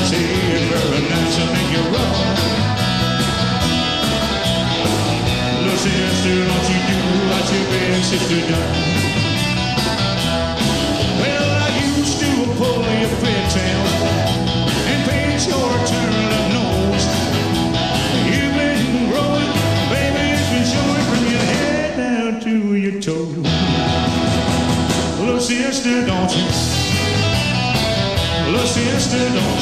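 Live rock and roll band playing with a steady drum beat and electric guitar. About three-quarters of the way through, the bass and drums drop out briefly under a falling glide, then the full band comes back in.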